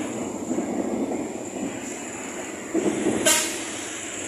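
A large bus's diesel engine running close by, with one short horn toot about three seconds in.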